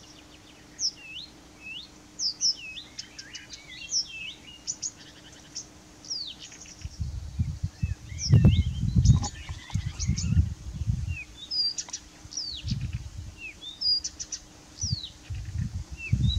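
Blyth's reed warbler singing from a bush: an unhurried string of short, varied whistled notes, many sliding downward, with dry clicking notes between them. From about seven seconds in, low gusty rumbles of wind on the microphone come and go and are louder than the song.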